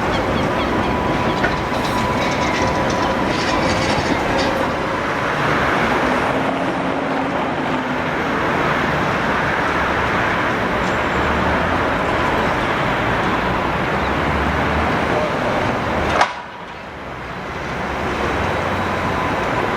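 Tatra T3 tram running on street track, a steady rumble of wheels and running gear. About sixteen seconds in the sound breaks off abruptly and a quieter rumble builds up again.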